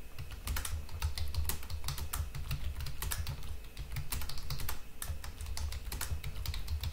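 Typing on a computer keyboard: a fast, uneven run of key clicks as a line of text is typed out.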